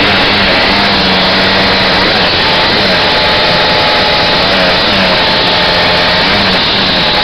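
1973 Arctic Cat EXT 650 snowmobile's two-stroke engine running under way, loud and steady, its pitch dipping and rising a few times with the throttle.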